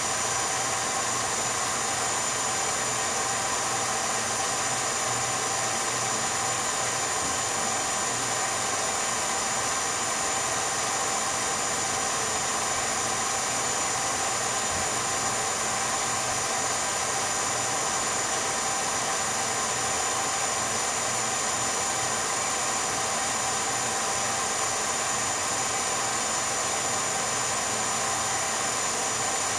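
8mm film projector running: a steady motor whirr with hiss and a few fixed tones, unchanging throughout.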